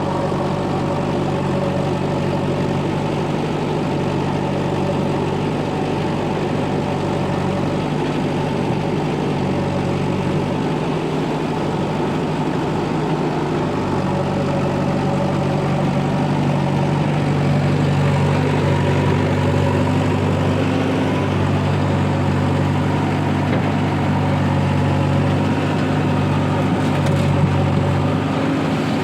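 Diesel engine of heavy machinery running steadily at an even, low speed, with small swells in level.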